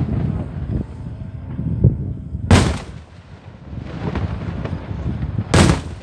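Fireworks exploding: two loud bangs about three seconds apart, the first about two and a half seconds in and the second near the end, over a continuous low rumble of smaller bursts.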